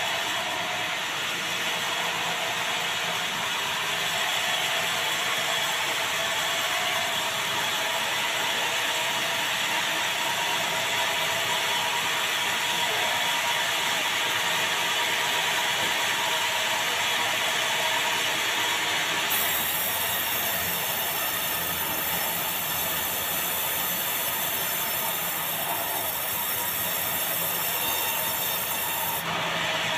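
Sawmill band-saw headrig running steadily with a mechanical clatter. About two-thirds of the way through, a high whine sets in as the blade cuts into a large meranti log, and it stops abruptly just before the end.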